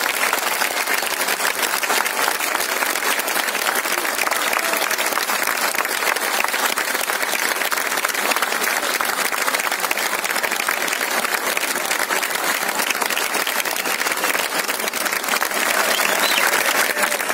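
Large crowd applauding steadily and without a break.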